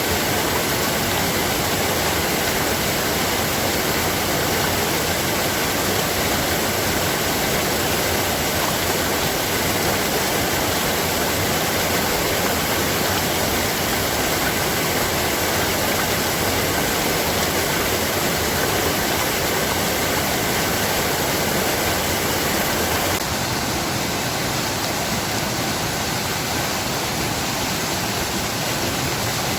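Steady rush of flowing water, a dense even hiss; about 23 seconds in it becomes slightly quieter and thinner.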